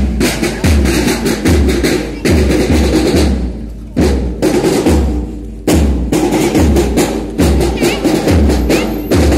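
Marching drum cadence: bass drum beats about twice a second under snare drum rolls. The pattern comes in repeated phrases, with short breaks about three and five seconds in.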